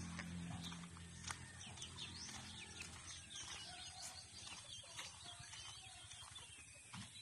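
Faint chirping of birds: many short high chirps and quick sweeps, one after another. A low hum fades out in the first second.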